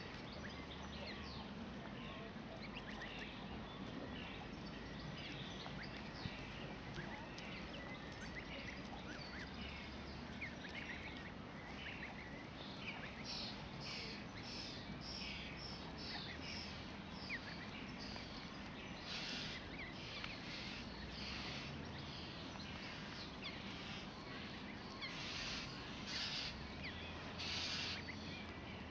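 Canada goose goslings peeping: many short, high, thin calls that get busier in the second half, over a low steady background hum.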